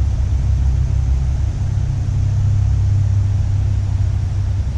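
Steady low rumble with a faint hiss above it.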